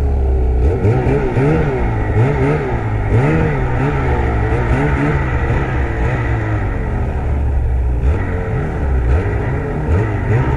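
Ski-Doo Summit 850 snowmobile's two-stroke engine revving up and down over and over as the sled works through deep powder snow, with a couple of steadier seconds in the middle before it revs again.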